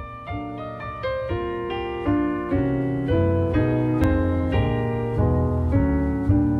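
Background music: a mellow electric-piano hip-hop track with a steady beat and a low bass line.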